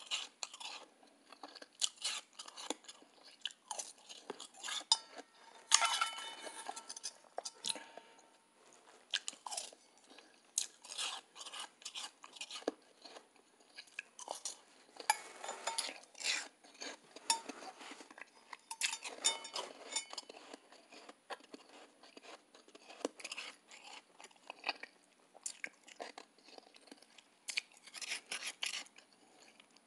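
Close-up chewing of soft, powdery ice: many irregular crisp crunches one after another, with busier bursts now and then.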